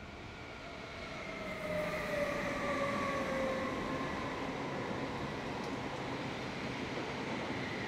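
Stadler KISS double-deck electric multiple unit coming slowly into a station, its traction motors whining in several tones that slowly fall in pitch as it brakes, with a low rumble of the wheels on the rails. It grows louder about two seconds in.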